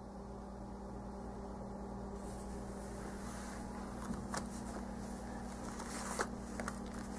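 Steady low machine hum in the room, with a few faint clicks and taps from handling plastic-packaged stationery, about four seconds in and twice more near the end.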